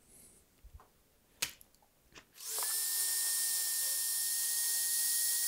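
Electric heat gun switched on after a few light clicks, its whine rising quickly as it spins up, then running steadily with a rush of hot air, shrinking a solder sleeve onto a shielded cable's braid.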